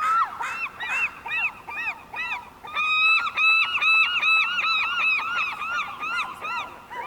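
Seagulls calling: a rapid series of short, arched cries, several a second, that builds about three seconds in into a denser, louder bout before tailing off.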